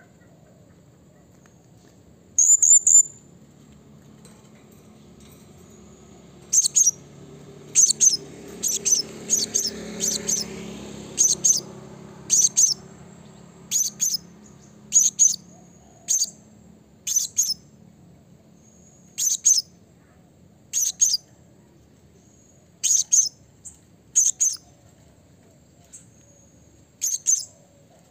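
Male blue-crowned hanging parrot (serindit) calling: sharp, very high-pitched chirps, mostly in twos or threes, repeated every second or two.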